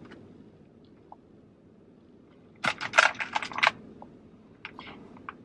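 Quick clicks and rattles of small hard makeup items being handled while someone searches through them: a dense run of about a second starting some two and a half seconds in, then a few fainter clicks near the end.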